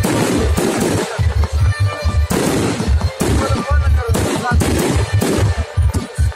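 Fireworks display: aerial shells launching and bursting in a rapid, irregular string of bangs and crackles, with deep booms.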